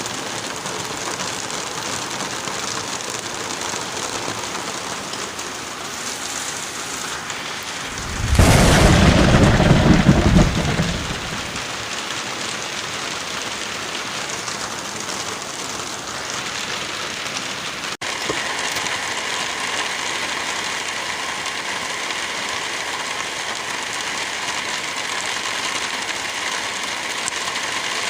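Steady heavy rainfall with one loud clap of thunder about eight seconds in that rumbles for around three seconds. Near the middle the rain briefly cuts out and resumes with a slightly different texture.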